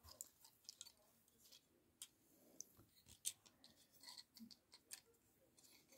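Faint, irregular clicks and ticks of a plastic Transformers action figure being handled, its joints and parts moved during transformation.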